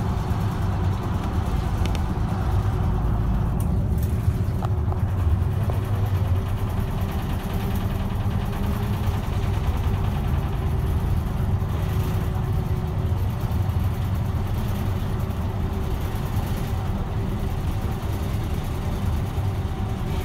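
Steady engine and road noise of a route bus, heard from inside the cabin, with a steady hum running through it.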